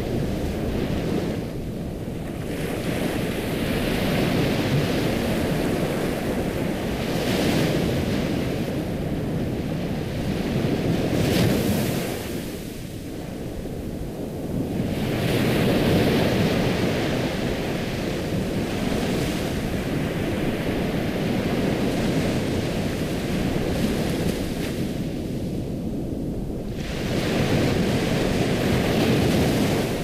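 Ocean surf ambience: waves washing in and drawing back in slow swells, with three deeper lulls between them.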